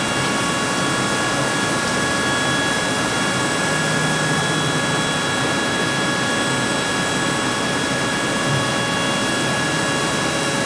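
CNC machining center running with coolant spraying inside its enclosure: a steady rushing hiss with several thin, steady high whines over it.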